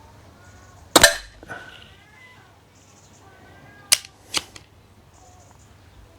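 A moderated .22 PCP air pistol, the SMK Snowpeak PP750L, fires one shot about a second in, a sharp report with a short tail. About three seconds later come two sharp clicks close together.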